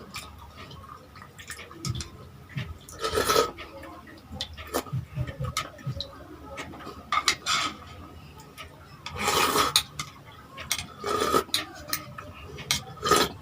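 Utensils clinking and scraping against plates and dishes in scattered knocks, with two longer scrapes about 3 seconds and 9 seconds in.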